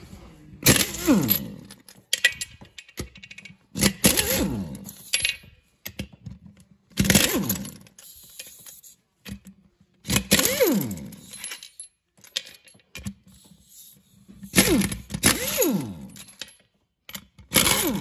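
Red pneumatic impact wrench on the tractor's wheel lug bolts, run in about six short bursts roughly three seconds apart. Each burst ends in a falling whine as the air motor spins down.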